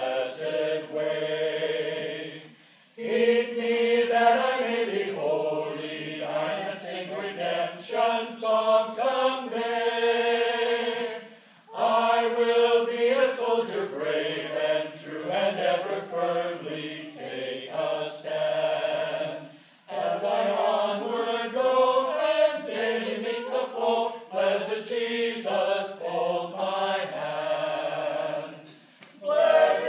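A cappella group of voices, likely a double quartet of eight singers, singing sustained chords in close harmony. The singing comes in phrases of about eight seconds, each followed by a brief pause for breath.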